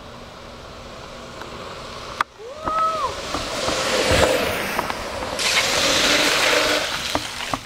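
Longboard wheels rolling and sliding on asphalt under a rough hiss of wind on a moving camera's microphone. A brief tone rises and falls about two and a half seconds in. The hiss is loudest and brightest in the last two seconds, as the rider slides on hands and board.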